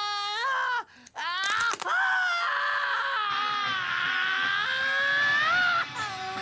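A man screaming in pain as his fingers are bent back in a finger lock. One short cry breaks off just under a second in, and a long held scream follows, rising in pitch at the end before cutting off.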